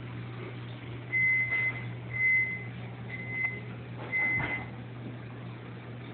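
Four high electronic beeps, each about half a second long and coming about once a second, over a steady low hum from the running aquarium equipment.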